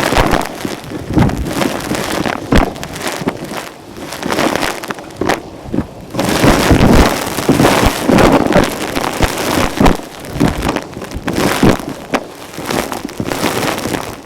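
Vacuum cleaner sucking up gritty dirt and fluff, with an irregular crunching crackle of debris rattling through the nozzle and hose over the rush of airflow.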